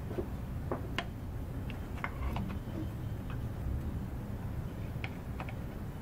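Irregular small metallic clicks and taps of hand tools, a screwdriver and an open-end wrench, against the go-kart reverse cable's jam nut and bracket as the nut is tightened, over a steady low hum.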